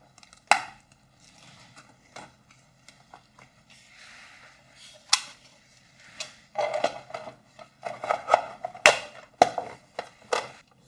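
Sharp clicks and knocks of plastic parts being handled: a 3D-printed battery adapter fitted into a transistor radio and the case closed up. The knocks come singly at first and cluster more densely in the second half.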